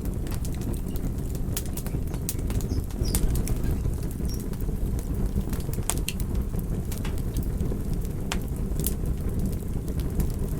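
Wood fire in a fireplace crackling: irregular sharp pops and snaps over a steady low rumble of burning.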